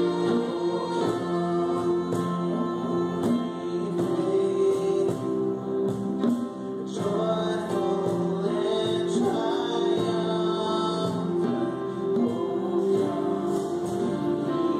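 Small live band playing a song: acoustic and electric guitars, keyboard and clarinet over a cajon and hand drum, with regular percussion strokes under sustained chords and a gliding melody line.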